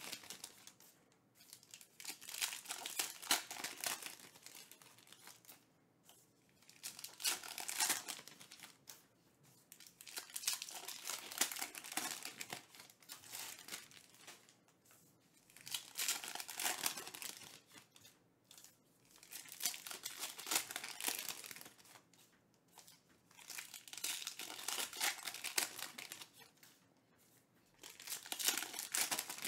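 Foil wrappers of Panini Elite Extra Edition baseball card packs being torn open and crinkled, with the cards slid out and handled, in bursts every few seconds.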